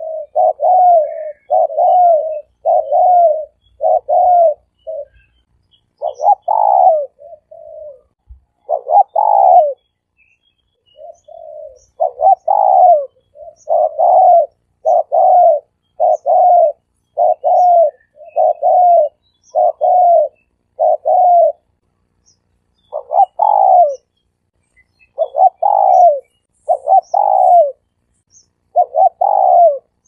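Spotted dove cooing over and over: short, low coos about one a second, in runs of several with brief pauses between the runs. Faint high chirps of small birds sound in the background.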